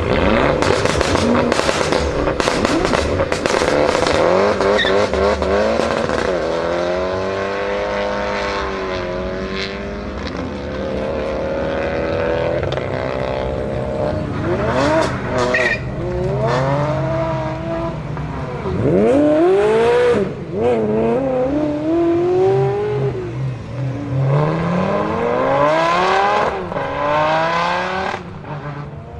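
BMW sedan's engine revving hard, its pitch climbing and dropping again and again, with tires squealing as the car lays down tire marks. The tire noise is densest in the first few seconds.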